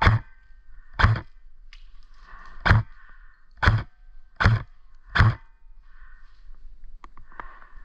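Airsoft rifle firing single shots: six sharp cracks at uneven gaps of about a second, with a faint steady whir between them.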